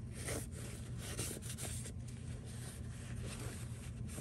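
Blue paper shop towel rubbing over a pistol's slide and red-dot optic housing: a run of faint, irregular papery swishes.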